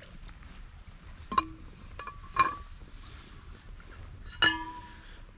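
Three sharp metallic clinks, each with a brief ring, from a stainless insulated bottle being handled and its lid twisted, over a low steady wind hiss.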